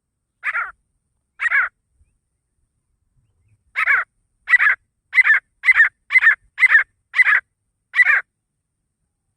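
Grey francolin (desi teetar) calling: two harsh notes, then after a pause of about two seconds a run of about nine notes at roughly two a second.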